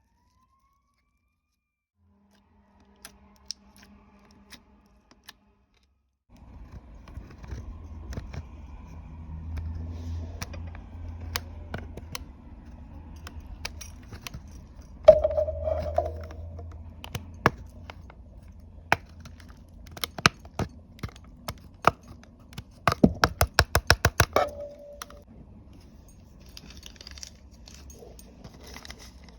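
Slime being worked by hand: sticky clicks and pops, with a fast run of pops about two-thirds of the way in. It starts after a few seconds of silence, over a faint low hum.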